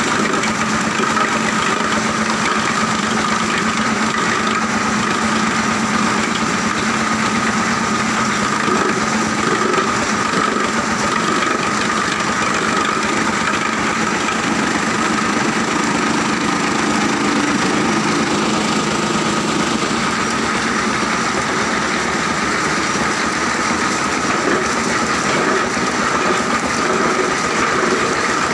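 Machinery of a plastic recycling and washing line running steadily: a constant drone with a whine over a lower hum, from the motors driving the plastic grinder, washing channels and chain conveyor.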